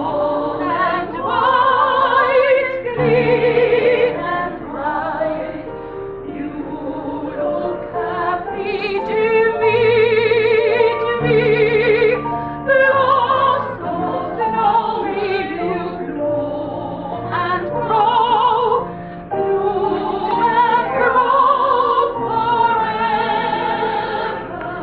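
Music: operatic-style singing with a strong, wavering vibrato over accompaniment, the notes held and changing every second or two.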